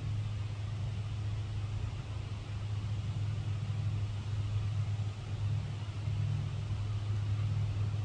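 A steady low rumble with a faint hiss above it, unbroken throughout.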